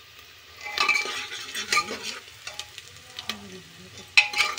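Metal spoon stirring and scraping sliced onions frying in oil in a pressure cooker, in uneven strokes, the loudest about a second in and again just after four seconds; between the strokes the oil sizzles.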